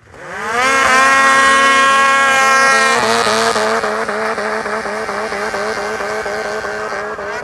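Two-stroke mountain snowmobiles launching hard in a drag race, engines revving up to a high, steady pitch within the first second. From about three seconds in the engine note wavers up and down about four times a second and slowly fades as the sleds pull away.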